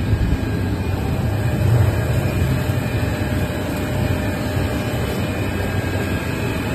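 Steady, loud mechanical drone of a running cast stretch film extrusion line, its extruder motors and belt drives humming low.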